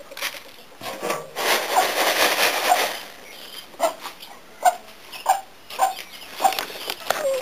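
Straw rustling and scraping as a straw-lined plastic crate is shifted, then a bantam hen clucking in short, evenly spaced clucks about every half second.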